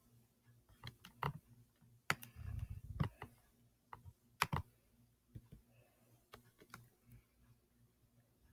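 Scattered sharp clicks and taps, about a dozen spread irregularly, with a brief low rumble a little over two seconds in.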